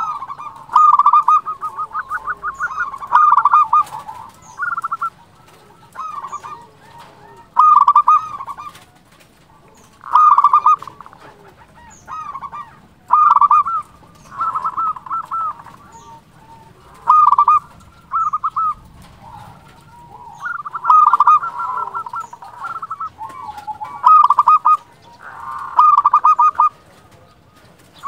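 Zebra dove (perkutut) cooing its song with a full voice: short phrases of quick, stuttering coos repeated every one to three seconds, with brief pauses between.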